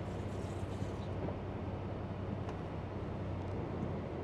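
Peterbilt 579 truck's diesel engine idling steadily, heard from inside the cab as a low, even hum.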